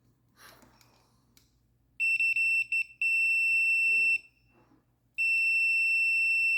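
Continuity tester beeping with a high steady tone as its probes touch the ends of a vacuum-harness wire. It stutters on and off about two seconds in as contact is made, holds for about a second, stops, then comes back steady from about five seconds in. The unbroken tone shows the wire conducts and is not damaged.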